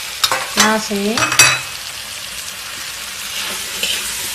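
Food sizzling steadily in a hot metal wok as cooked rice is added to the frying nasi goreng ingredients. A metal spatula clanks sharply against the wok once about a second and a half in.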